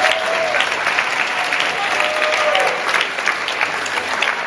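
Audience applauding, a dense patter of many hands clapping that eases off slightly in the last second or so.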